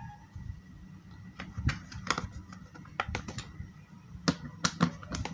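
Light plastic clicks and taps, a dozen or so, as the lid of a plastic electrical junction box is fitted on and its screw set in place by hand.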